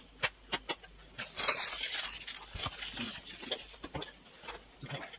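Hands handling packaging and monitor parts: a run of light clicks and knocks, with a stretch of rustling and scraping about a second and a half in.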